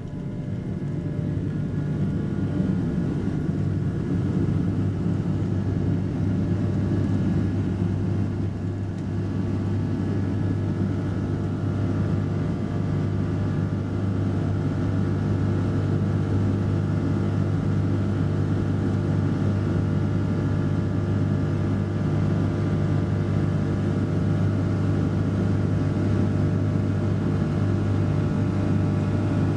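Steady drone of a vehicle's engine: a low hum with several steady tones over it, swelling over the first few seconds and then holding level.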